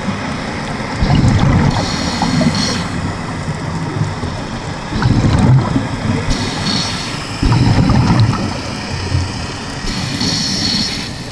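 Scuba regulator breathing underwater: hissing inhalations through the regulator alternating with gurgling bursts of exhaled bubbles, about three breaths.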